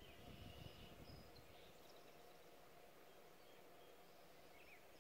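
Near silence: faint outdoor ambience in woodland, with a few faint, short bird chirps.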